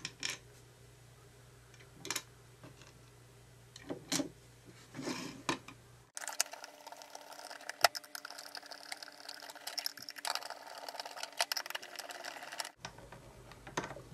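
Small screws being driven into a plastic toy car housing with a screwdriver: scattered clicks and scrapes, then, from about six seconds in to near the end, a stretch of rapid, dense ticking and scraping.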